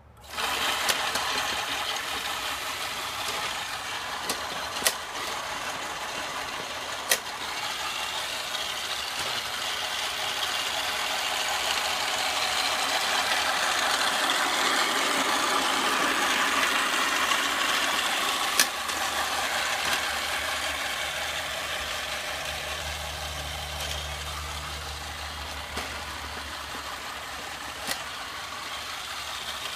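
1950s E-Z Kutr corded electric lawn mower running steadily, switched on abruptly at the start. It gets louder as it passes close by midway, with a few sharp clicks.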